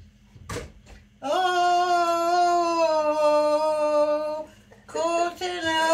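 A woman singing one long held note that sags slightly in pitch, followed near the end by a few shorter sung notes.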